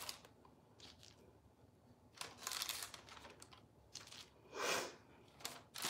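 Parchment paper rustling faintly in a few short spells as cinnamon rolls are pressed into a parchment-lined glass baking dish.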